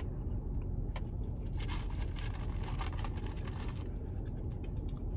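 Steady low hum of a car cabin, with scattered soft clicks and crunches of someone eating fries and a lobster roll from a paper tray.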